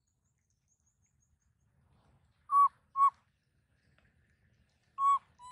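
Four short, clear, whistle-like calls in two pairs about two and a half seconds apart. Each call dips slightly in pitch and then holds steady.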